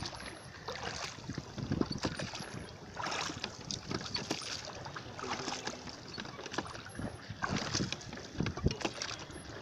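Lake water splashing and lapping against the side of a small boat under way, with irregular splashes about once a second over a steady wash, and wind on the microphone.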